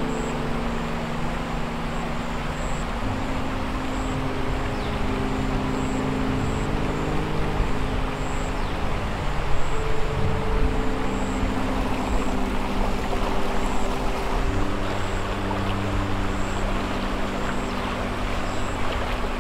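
Creek water rushing steadily over rocks, under a low, sustained film score of held notes that shift every few seconds.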